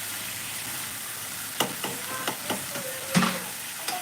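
Food sizzling in a hot pan with a steady hiss, and a run of sharp clicks and knocks of a utensil against the pan from about halfway through, the loudest just before the end.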